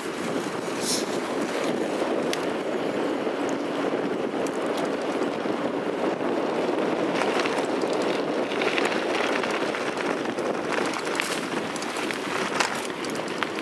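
Mountain bike rolling over a sandy, gravelly forest track, heard through a bike-mounted camera: a steady rushing tyre noise with scattered rattles and clicks from the bike and mount, and a sharper knock near the end.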